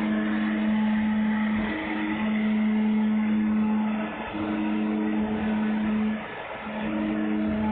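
Four-head wood CNC router running, its spindle motors giving a steady hum over cutting noise. The hum breaks briefly twice and drops out for about half a second a little after six seconds.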